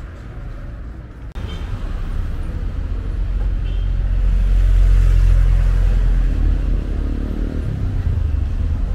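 Street traffic: a motor vehicle's engine rumbling close by, jumping up suddenly about a second in, swelling to its loudest about halfway and easing a little near the end.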